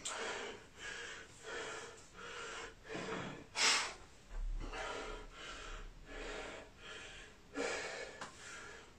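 A man breathing hard and fast, out of breath from exercise, with one much louder, sharper breath about three and a half seconds in.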